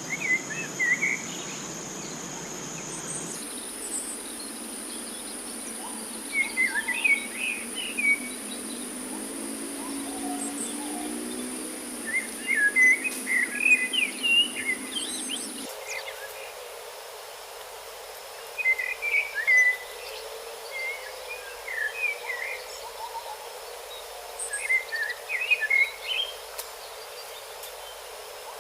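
Forest bird calling in short bouts of quick chirps every few seconds, over a steady background of forest noise and a thin high insect whine.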